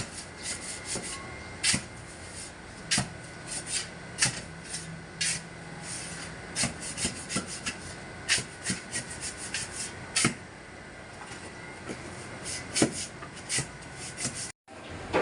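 Irregular sharp taps and knocks from hand-tool work, some in quick clusters and some spaced a second or more apart, with scraping between them. The sound drops out briefly near the end.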